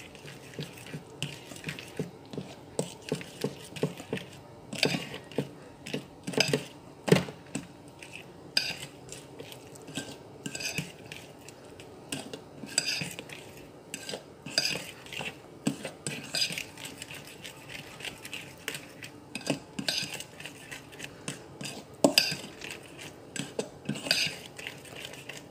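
Metal spoon stirring thick banana cake batter by hand in a bowl, clinking and scraping against the sides in quick, irregular strokes.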